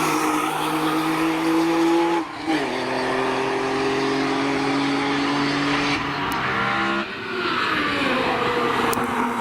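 A BMW E46 M3 running at high revs on track. The engine note breaks sharply twice, about two seconds in and about seven seconds in, and falls in pitch after the second break.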